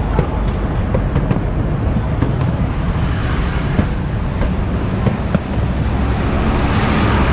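Busy city street traffic: a steady rumble of vehicles, with a bus passing close by near the end. Scattered faint pops from distant aerial fireworks come through the traffic noise.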